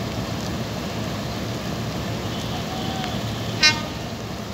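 Bangladesh Railway diesel-electric locomotive engine running with a steady low rumble as it rolls slowly alongside the platform. A single short, sharp, high toot sounds about three and a half seconds in.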